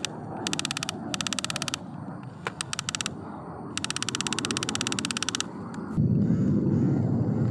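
A toy remote-control excavator's small electric gear motors whirring in short stop-start bursts, a rapid ticking rattle, as the arm and bucket are worked. A few separate clicks come between bursts. About six seconds in, a louder low rumbling noise starts suddenly.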